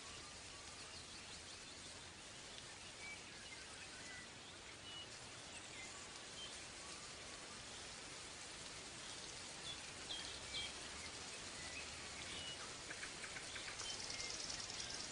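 Faint steady background hiss with scattered short, thin chirps, like distant birds. A quick run of light ticks comes near the end.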